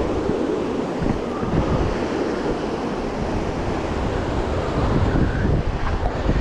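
South Platte River rapids rushing over boulders, a steady loud hiss of whitewater, with wind buffeting the microphone in gusty low rumbles.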